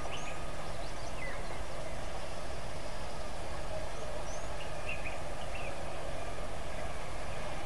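Outdoor ambience: a steady rushing noise with a low rumble, and short high bird chirps scattered through it, a few together about a second in and again about four to five seconds in.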